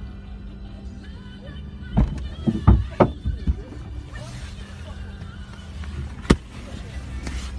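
A vehicle collision: a quick cluster of heavy impacts about two seconds in, then one more sharp knock near the end, over music playing throughout.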